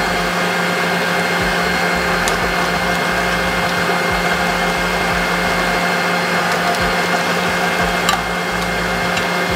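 Smeg stand mixer running steadily at speed, its whisk beating thickened cream toward soft peaks: an even motor hum and whir with a few steady tones.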